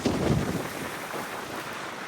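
Strong gale wind buffeting the microphone over the rush of heavy surf, with a loud low surge in the first half-second.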